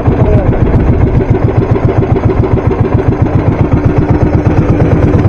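Small fishing boat's engine running steadily, loud and close, with a fast even beat.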